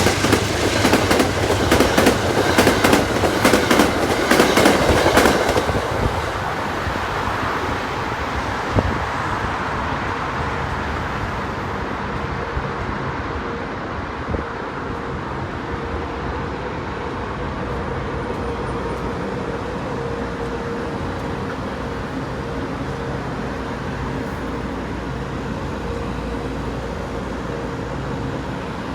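A train passing close by: loud clatter and rapid clicks of wheels over the rails for about the first five seconds, then a steadier rumble as it rolls on.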